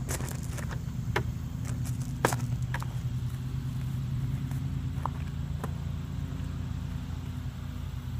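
A steady low engine drone runs throughout, with several sharp knocks over it in the first half.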